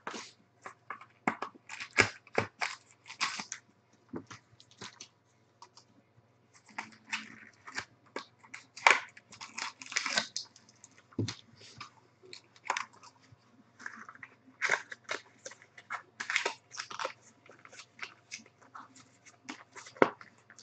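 Trading-card packaging being handled: foil card packs and cardboard box parts crinkling and rustling in irregular sharp crackles, with a short lull partway through.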